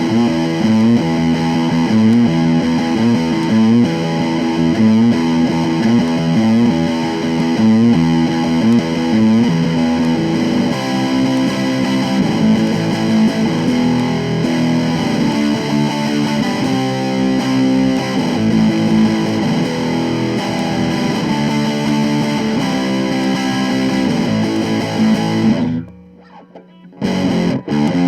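A 1970s Univox Hi-Flier Phase 3 electric guitar played through distortion, a riff of chords changing steadily. The playing stops for about a second near the end, then starts again.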